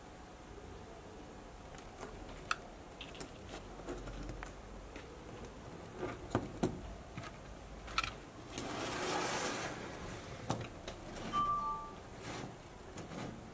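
Small wooden toy train carriages being handled on a table: scattered light wooden clicks and knocks as they are set down and hooked together, with a brief rustle about nine seconds in.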